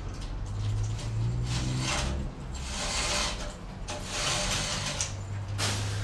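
Roller window shade being raised by hand, its roller mechanism making several short noisy runs over a steady low hum.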